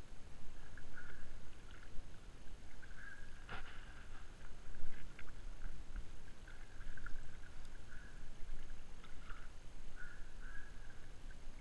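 Kayak paddle strokes: the double-bladed paddle dipping and splashing on alternate sides about once every second or so, over a low rumble of wind on a GoPro microphone. A thin high sound comes and goes throughout, and there is one sharp click about three and a half seconds in.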